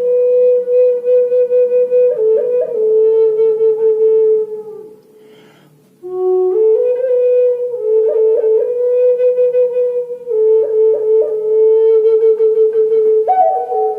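Native American flute playing a slow melody of long held notes with quick grace-note flourishes. The playing stops for about a second near the middle, then resumes.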